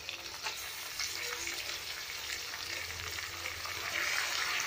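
Raw chicken pieces sizzling in hot oil with onions, curry leaves and green chillies in an aluminium pan, a steady crackling fry. The sizzle grows louder about four seconds in as more chicken goes into the pan.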